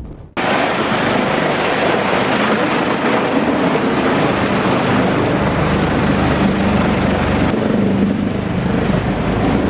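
Heavy diesel machinery running steadily under load: dense mechanical noise over a low engine drone.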